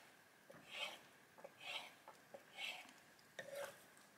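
Kitchen knife cutting squid into small pieces on a wooden chopping board: four soft cuts about a second apart, each a light tap followed by a brief scrape.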